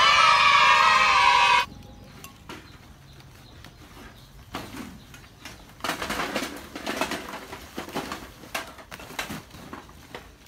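A loud wavering voice-like sound for about a second and a half that cuts off abruptly, then dry coconut sheath pieces rustling and clattering as they are tipped out of a plastic rice sack onto the ground, in irregular bursts from about four and a half seconds in.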